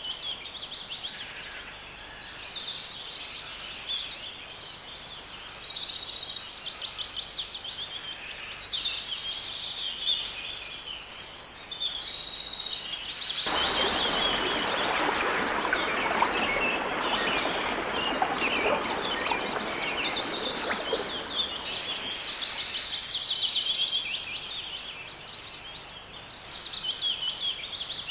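Wildlife ambience of steady chirping and trilling calls from birds. For several seconds from about halfway through, a loud rushing noise rises over them, then fades.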